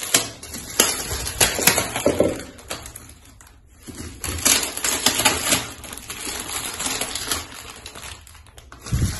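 Clear plastic wrap around a new frying pan and its lid crinkling and rustling as it is handled and pulled loose, with irregular sharp crackles and a quieter lull in the middle.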